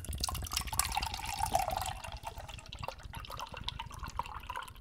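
Banana-flavoured rice drink (sikhye) poured from a can into a glass mug: a steady splashing, glugging stream that starts suddenly and tails off near the end, its pitch rising slightly as the mug fills.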